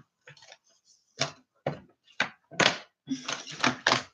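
A string of short knocks and taps as small makeup items and their cases are picked up and put down, coming closer together near the end.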